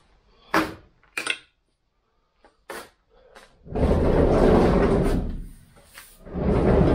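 VW T2 Bay camper van sliding door rolling along its track, rumbling for a couple of seconds twice in a row. It follows three short sharp clicks and knocks.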